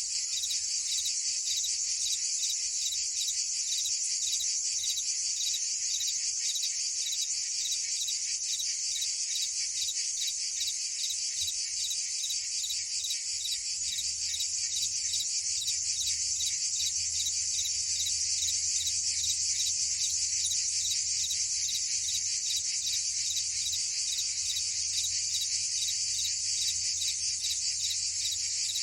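A dense, steady chorus of cicadas and crickets, high-pitched, with a fast, even pulse that holds unchanged throughout.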